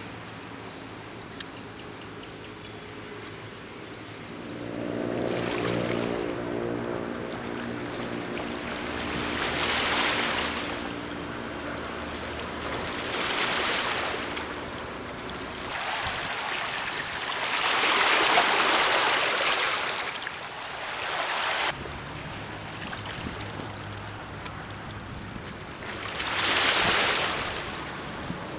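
Small sea waves washing in over shore rocks and boulders, swelling and fading every few seconds. A steady low engine hum runs under the first half and returns near the end.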